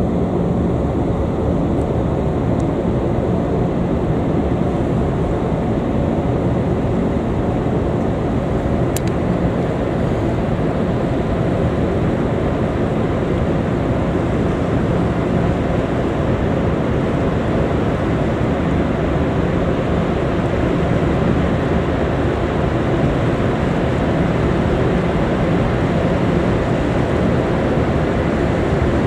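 Car ferry underway: a steady low engine drone under an even rushing noise.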